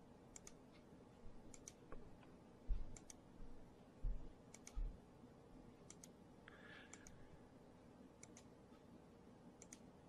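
Faint, irregular clicking of a computer mouse button, each click a quick press-and-release pair, about a dozen in all. Three soft low knocks, a little under 3 s, about 4 s and nearly 5 s in, are the loudest sounds.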